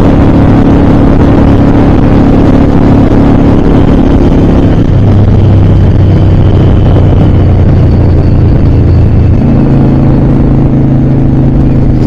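Honda Shadow VLX 600 V-twin engine running under way. Its note steps down about five seconds in and steps up again near the end.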